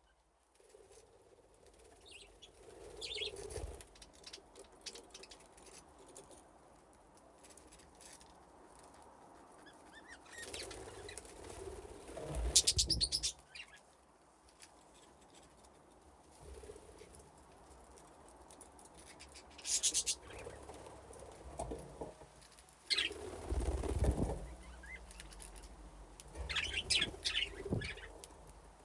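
Budgerigars in an aviary chirping, with several short bursts of wing flapping as birds take off and fly about, the loudest flutters about halfway through and again in the later part.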